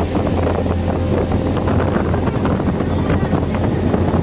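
Engine of an amphibious Duck Tour vehicle running with a steady low drone while it drives, with wind buffeting the microphone.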